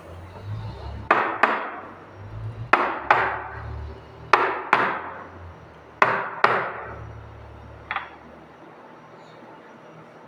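Sharp hard knocks, mostly in quick pairs about half a second apart: four pairs and then a single knock, each ringing briefly. A low hum runs underneath.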